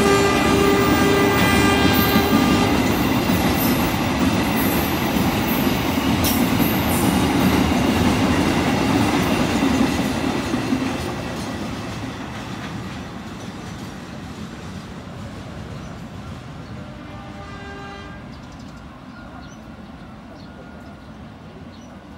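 Freight train of fuel tank wagons rolling past and away. The locomotive horn sounds and stops about three seconds in. The wheels clatter over the rails, fading steadily as the train recedes, and a brief, faint horn sounds again later.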